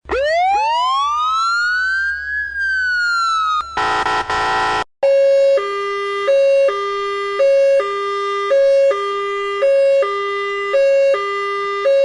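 Siren sound effects: one wail that rises and then falls over about three and a half seconds, then a short harsh blare. After that, a two-tone ambulance siren alternates between a high and a low note about once a second.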